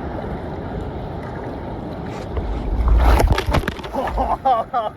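Ocean surf churning close to the microphone, with a wave crashing over it about three seconds in, followed by gurgling, bubbling water.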